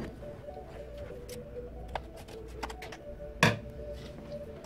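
Small clicks and one sharp knock about three and a half seconds in, from a package and tools being handled on a workbench, over faint background music.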